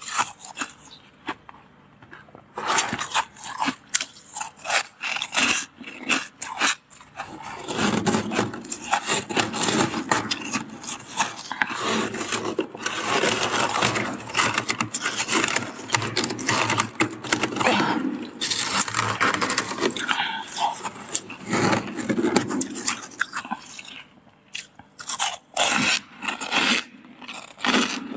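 Thick freezer frost being scraped and crushed by hand: a dense crunching and crackling of soft ice. It starts a couple of seconds in and thins to scattered crackles near the end.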